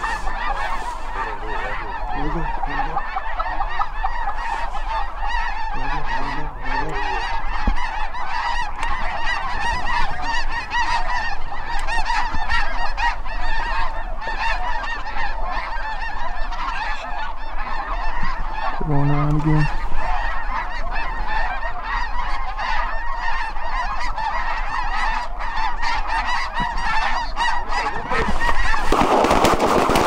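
A huge flock of snow geese calling overhead: a dense, unbroken chorus of high honking. About a second before the end, a rapid volley of shotgun fire breaks out.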